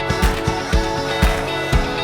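Music with a steady beat of about two beats a second.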